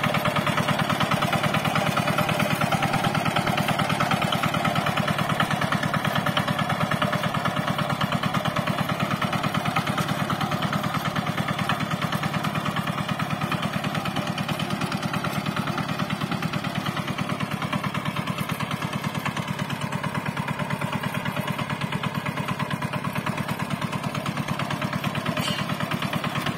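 Single-cylinder Changfa diesel engine of a bhutbhuti motor van running steadily, with a fast, even chug of firing pulses.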